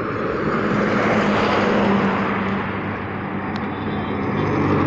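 Motorcycle riding along a highway: a steady engine drone under a rush of wind and road noise, louder in the first two seconds as a heavy goods truck passes the other way.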